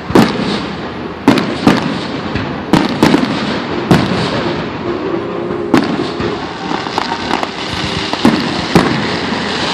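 Aerial fireworks going off: a string of sharp bangs, roughly one every second or so, over a steady crackle of bursting shells.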